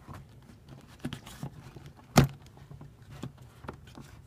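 Handling noises from a rubber air intake hose being fitted by hand onto the plastic air filter housing: scattered light clicks and rubbing, with one sharp knock about two seconds in.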